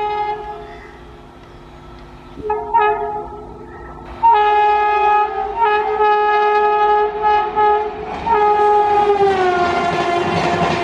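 A WAP-7 electric locomotive's horn sounding in blasts: a short one, a longer one, then a long blast broken twice. Near the end its pitch falls as the locomotive passes, and wheel and track noise of the train rises.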